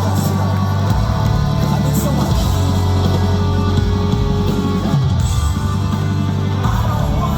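Post-hardcore band playing live and loud, with distorted electric guitars, bass and drums and little or no singing.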